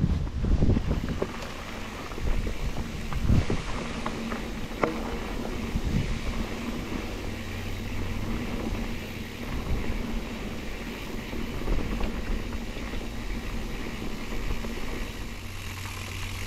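Mountain bike riding over a dirt singletrack trail: tyres rolling on dirt and wind on the microphone, with low thumps and rattles as the bike goes over bumps, heaviest in the first few seconds.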